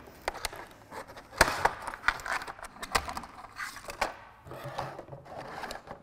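Rigid clear plastic clamshell packaging crackling and clicking as it is pulled apart and a ratcheting crimper is taken out, with a few sharp snaps spread irregularly through it.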